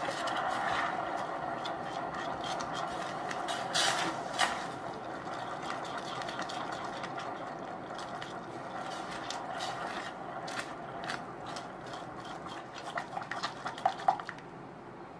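Silicone spatula stirring and scraping hot caramel in a stainless steel saucepan, over a steady hiss from the bubbling syrup. Sharp taps of the spatula against the pan stand out about four seconds in and in a quick run near the end.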